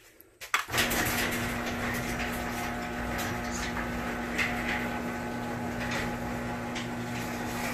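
Overhead electric garage door opener running as it lowers the door: a steady motor hum that starts about a second in, with scattered clicks and rattles from the door. It runs a bit noisy.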